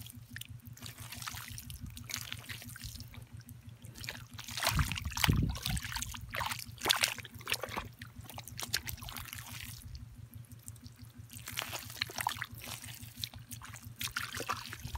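Hand digging and squelching through wet mud and muddy water, with clusters of wet slaps and splashes about four to eight seconds in and again near the end. A steady low hum runs underneath.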